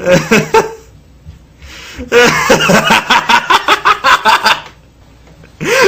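A person laughing in quick, repeated bursts for a couple of seconds, after a brief vocal sound at the start.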